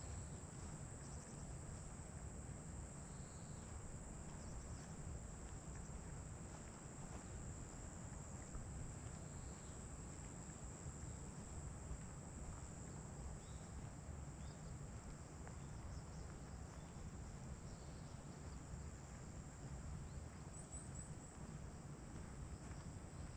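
Insects trilling in one continuous high-pitched drone, with a few faint chirps and a steady low rumble underneath.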